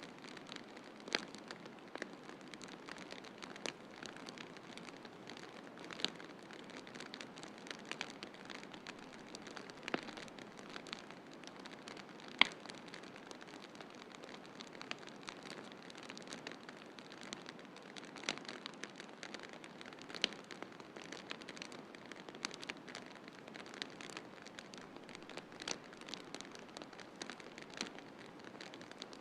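Wood fire crackling: scattered sharp pops and snaps at irregular intervals, the loudest about twelve seconds in, over a steady hiss.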